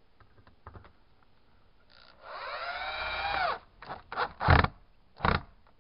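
Cordless drill driving a screw into wooden window trim: the motor runs for about a second and a half, then winds down in pitch. Three sharp knocks follow, the loudest about halfway through the second half.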